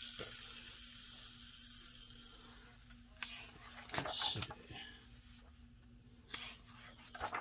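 Pages of a large glossy hardcover book being turned: a fading paper rustle at first, then quick page flips about three and four seconds in and another just past six seconds.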